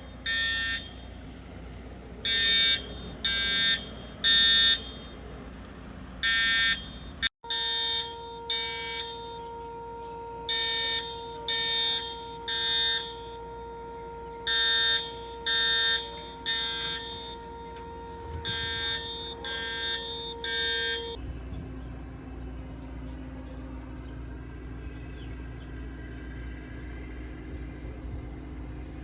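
Building fire alarm sounding its repeating pattern of three beeps about every four seconds. A steady humming tone runs under it for part of the time. The alarm stops about twenty-one seconds in, leaving steady low background noise.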